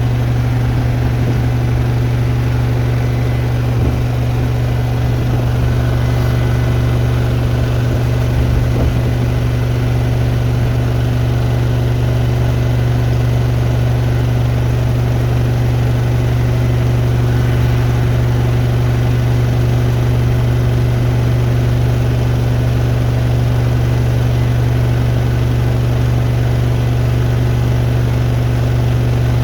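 Hoover Nextra Iconic and Beko WDER washing machines on a 1400 rpm final spin, drums turning steadily at full speed with a loud, even hum.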